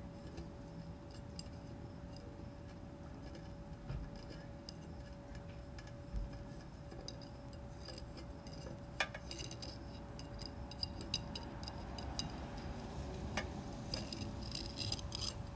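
Light clicks and taps of small plastic lab ware, a scoop, vial and well plate, being handled on a hard tabletop, coming more often in the second half, over a faint steady hum.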